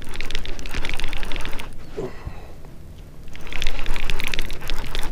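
Fishing reel cranked fast in two bursts of whirring clicks, a pause of about a second and a half between them, as a small hooked fish is reeled in.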